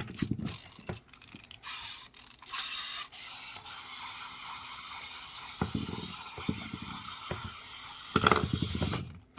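Small plastic wind-up toy: a few clicks of winding, then its clockwork spring mechanism whirring steadily for several seconds before stopping suddenly, with a few knocks of plastic on the table.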